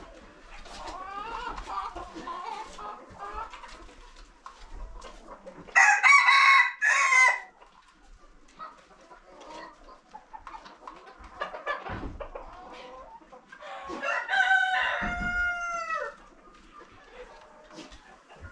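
Chickens clucking, with a rooster crowing loudly about six seconds in and crowing again, less loudly and falling in pitch, around fifteen seconds in.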